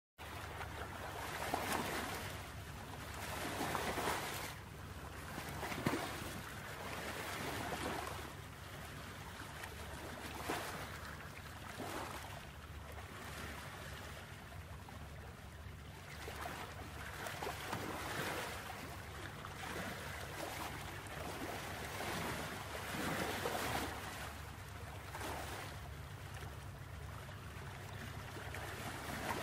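Braided cord rustling and sliding across a wooden tabletop in irregular swishes every second or two as it is worked into a knot, over a steady low hum.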